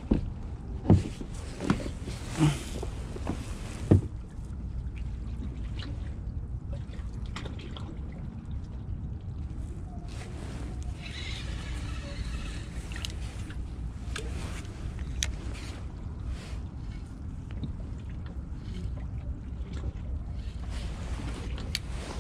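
Kayak at rest on the water: a low, steady rumble of wind on the microphone with water sloshing faintly against the plastic hull. There are five sharp knocks in the first four seconds and a few faint clicks after.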